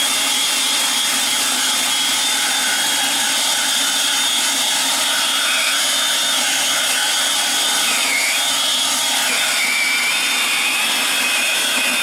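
EGO cordless battery leaf blower running steadily at full power: a constant rush of air with a high motor whine, blasting loose debris out of a crack in a concrete driveway.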